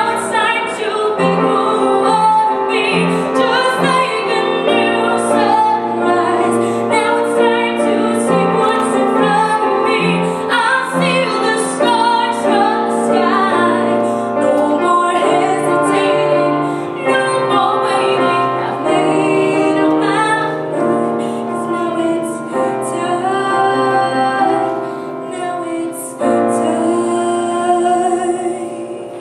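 A young girl singing solo while accompanying herself on a Steinway grand piano, her voice carrying the melody over held piano chords.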